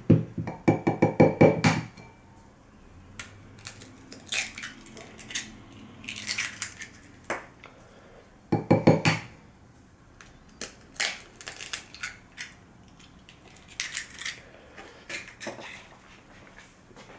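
Eggs cracked against the rim of a glass bowl and broken open. A quick run of taps on the glass comes near the start and another about halfway through, one for each egg, with brittle shell crackling in between.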